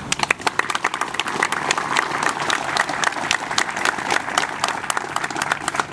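Crowd applauding: many hands clapping, starting abruptly and thinning out near the end.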